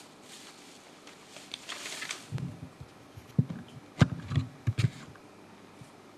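Handling noise: a brief rustle, then several sharp knocks and low thumps, the loudest about four seconds in.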